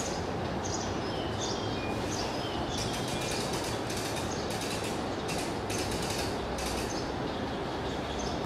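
Sand scraped and pushed by hand on a heap of sand: gritty rasping strokes coming one after another, over a steady low rumble. A few short high chirps sound in the first three seconds.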